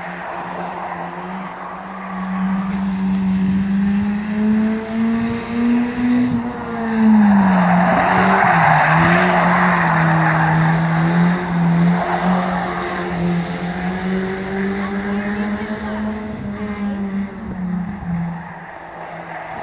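Eurorod oval-racing car's engine running hard on practice laps. Its note rises, drops sharply about seven seconds in as it lifts off into the bend, then wavers with the throttle. It is loudest from about seven to twelve seconds in as the car comes round close, with added tyre and track noise.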